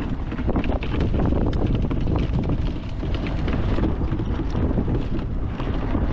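Wind buffeting the microphone, with irregular knocks and rattles as a HECHT 59399 Army electric ATV jolts over rough ground on its very stiff suspension. The electric quad's motor itself makes no sound that stands out.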